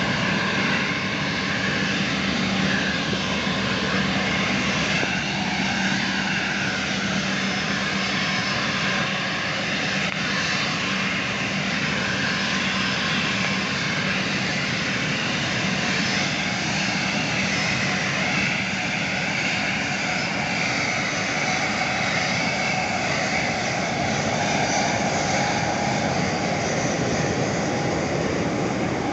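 Aircraft engine noise: a steady, even drone, with a constant low hum through the first several seconds and a faint higher whine toward the end.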